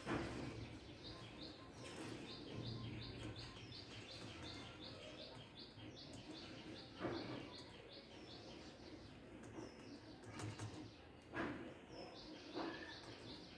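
A small bird chirping rapidly and repeatedly, about three high chirps a second, stopping for a few seconds and starting again near the end. A few sharp clicks or knocks come in between.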